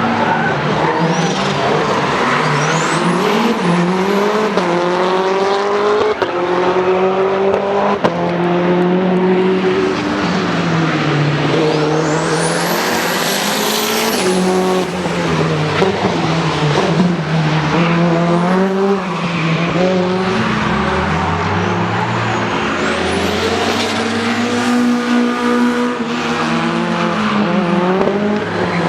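Modified Lancia Delta HF Integrale rally car's turbocharged four-cylinder engine being driven hard on track, its pitch climbing under acceleration and dropping off throttle over and over. High whistles rise and fall above the engine note.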